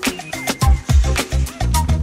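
Background music with a steady beat of bass and drums.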